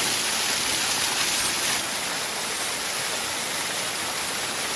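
Steady rushing of a waterfall, a hiss of falling water, a little louder for the first two seconds.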